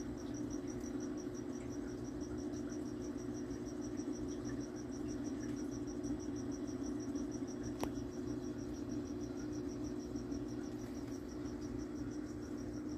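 A cricket chirping in an even, fast rhythm of about four high chirps a second, over a steady low hum, with one sharp click about eight seconds in.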